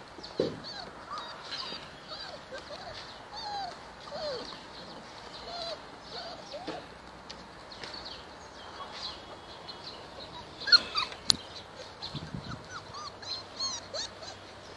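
Golden retriever puppies whimpering and squeaking in short, high yelps throughout. A couple of sharp knocks come about two-thirds of the way through.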